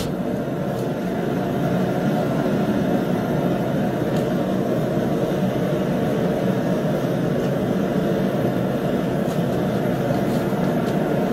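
Steady rushing drone of a gas forge burner running, with a few faint metal clicks.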